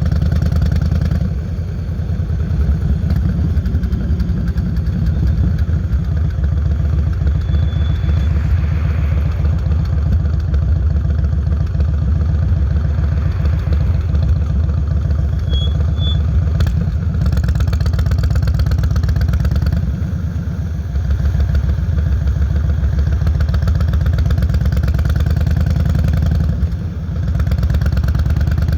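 Yamaha Road Star 1600 (Wild Star) air-cooled V-twin, carbureted, running through Vance & Hines Longshots pipes as the bike is ridden: a steady, loud, low pulsing exhaust note, with brief dips in level near the start, about two-thirds through and near the end.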